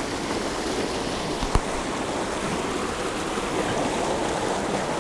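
Steady rush of river water pouring over the rocks of a cascade, with a single sharp knock about a second and a half in.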